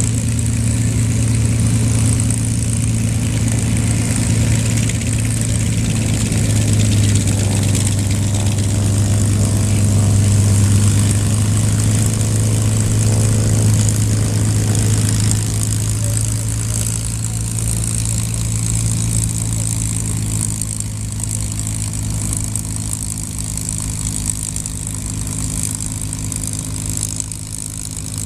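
P-51 Mustang's V-12 piston engine idling as the aircraft taxis, a steady low propeller drone. It grows louder toward the middle and then slowly fades as the plane passes by.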